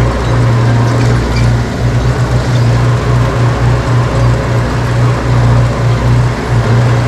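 Diesel engine of heavy earthmoving machinery running steadily, a loud continuous low hum with rough mechanical noise over it.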